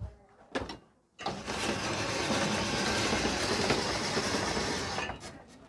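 An old-style ice shaving machine shaving a block of ice into a bowl: a steady scraping noise that starts suddenly about a second in and stops shortly before the end. A couple of light knocks come just before it.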